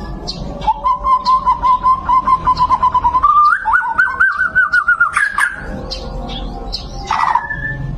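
White-rumped shama singing a fast run of repeated notes, its 'tembakan' phrase, stepping up in pitch about halfway through before breaking into varied chirps.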